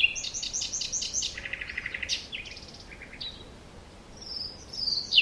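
Several songbirds singing. A quick run of repeated high notes opens it, a buzzy trill follows about a second and a half in, and slurred whistled notes come near the end.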